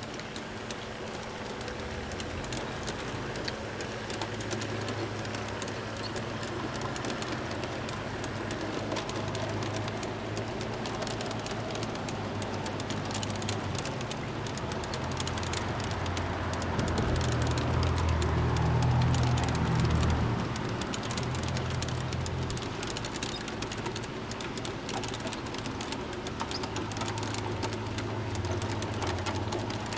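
G-scale model freight cars rolling past on garden-railway track, with a dense run of small clicks from the wheels over the rail joints and a low hum that swells about two-thirds of the way through.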